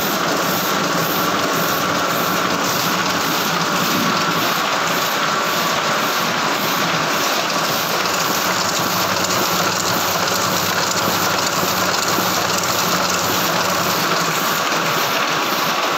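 Small sheet-fed offset printing press, a Heidelberg GTO, running: a steady, dense mechanical clatter that holds at one level throughout.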